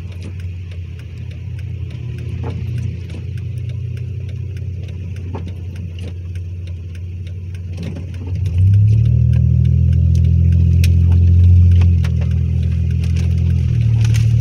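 Supercharged 3.8-litre V6 of a Chevrolet Impala SS heard from inside the cabin, idling steadily, then pulling away about eight seconds in with a sudden, much louder engine note that eases off a little a few seconds later. Faint scattered ticks sound throughout.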